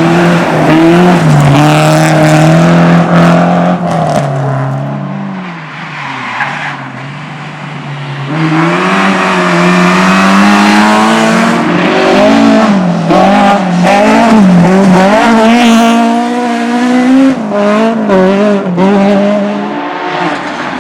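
Race car engine revving hard through a slalom, its pitch climbing and dropping over and over with gear changes and lifts of the throttle, with tyre squeal. It fades for a few seconds about a third of the way in, then comes back loud.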